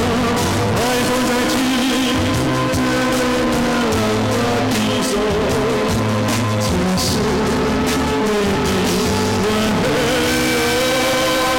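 A man singing a song into a microphone, holding wavering notes over instrumental accompaniment with a steady bass line.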